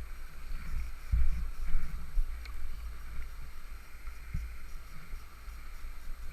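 Rushing floodwater, a steady hiss, with gusts of wind buffeting the microphone.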